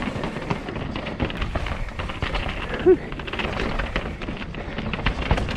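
Mountain bike clattering over rocky trail: a dense run of small knocks and rattles from tyres striking rock and the chain and frame shaking, over a steady rush of wind noise. One brief louder sound about three seconds in.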